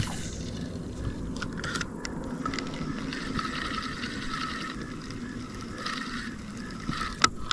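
Spinning reel being cranked to retrieve a crankbait: a steady whirring of the reel's gears, with a few light clicks.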